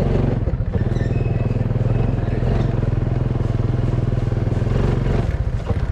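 Honda motorcycle engine running as the bike rides slowly, with a steady, even firing pulse. The engine note dips briefly about half a second in and again near the end.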